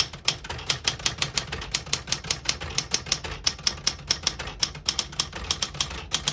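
A 1976 Smith-Corona Galaxie Twelve manual portable typewriter being typed on: a steady stream of sharp key strikes, about six a second, as the typebars hit the platen.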